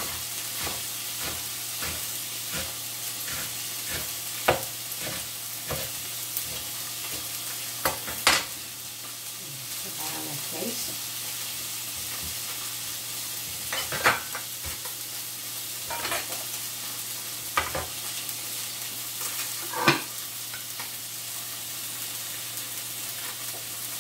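Salmon fillets sizzling steadily in a frying pan. Over the first eight seconds a knife chops lettuce on a cutting board at about two cuts a second, followed by a few louder, scattered knocks.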